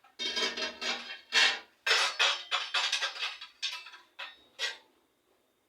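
Spoon scraping and clinking against a cooking pot and plate as cooked maize-and-bean stew is dished out: a quick run of scrapes and knocks that stops near the end.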